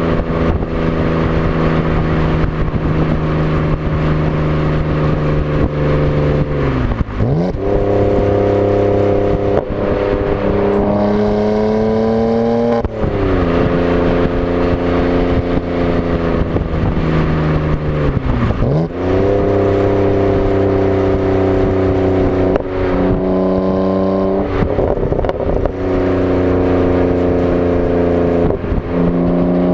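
Exhaust note of a BMW E90 328i's straight-six through a custom sport exhaust, heard right at the tailpipes while driving. The revs hold steady for stretches, dip and jump back up several times, climb for a couple of seconds under acceleration about eleven seconds in, then fall away slowly.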